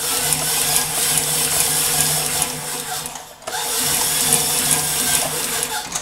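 Claes open-arm industrial sewing machine stitching leather: the motor and needle run steadily, stop briefly about three seconds in, then run again.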